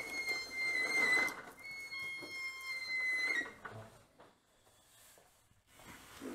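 A high, steady whistling tone, held for about three seconds with a short break partway, that stops a little after three seconds in.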